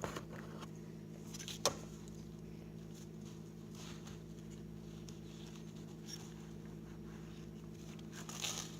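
Quiet kitchen-knife cutting of strawberries on a paper towel: one sharp knock of the knife about two seconds in, a few faint taps before it and a soft rustle near the end, over a steady low hum.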